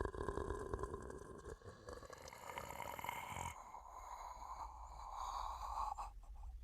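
Werewolf creature sound effect: a rough, breathy growl with a low rumble, changing in texture about three and a half seconds in.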